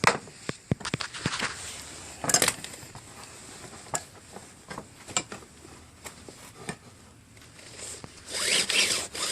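Recoil starter of a Tecumseh snowblower engine being worked by hand: scattered clicks and knocks, then rasping pulls of its stiff starter rope near the end.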